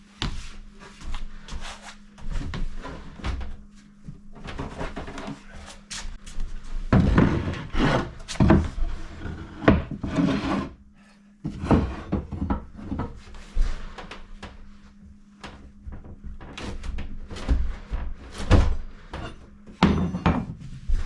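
Plywood cabinet being shoved and worked into place, wood scraping and knocking in irregular bursts as it sticks on something and won't slide. The scraping is loudest in the middle and again near the end.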